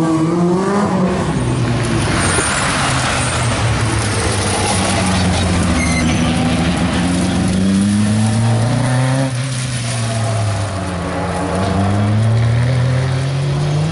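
Rally car engines revving hard and easing off in turn, their pitch rising and falling repeatedly, over a steady rushing noise of tyres and loose surface.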